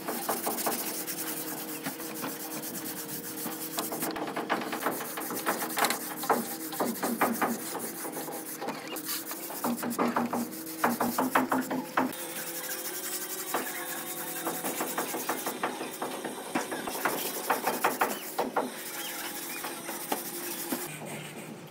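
Hand-held rubbing block scraping over a fine sand-cement render on a round column, in runs of quick back-and-forth strokes with short pauses, over a faint steady hum.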